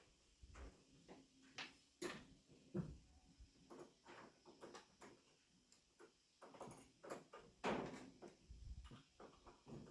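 Faint, irregular light knocks, clicks and short scrapes of hand work, with a few sharper knocks about two seconds in, near three seconds and near eight seconds.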